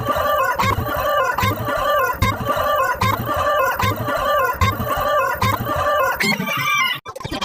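Chicken clucking and crowing sound effect, repeating in an even pattern, that cuts off suddenly near the end.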